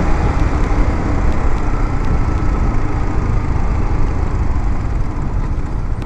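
Steady motorcycle riding noise: engine and wind rushing past, heavy in the low end.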